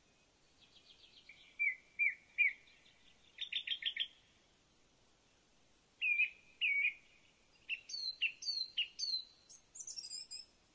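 Wild birds calling: clusters of short, high chirps and quick stuttering trills, with quiet gaps of a second or two between them. The highest notes come near the end.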